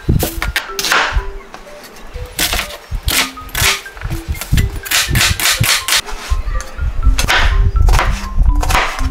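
Santoku knife chopping onion and potato on a cutting board: a quick, uneven run of sharp knocks of the blade against the board. Light background music with short notes plays underneath.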